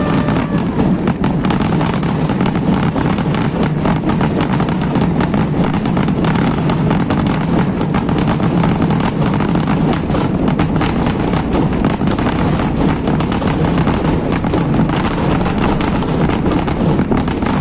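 Fireworks barrage: rapid, overlapping bangs and crackles piling into a continuous low booming.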